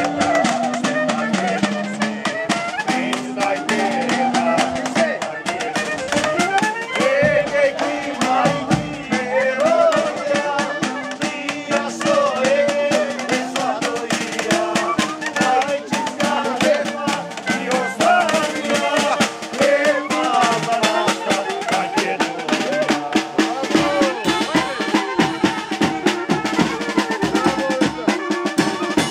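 Small brass band playing a tune outdoors: trumpet, saxophone and clarinet carry the melody over steady beats from a bass drum with a cymbal on top and a snare drum.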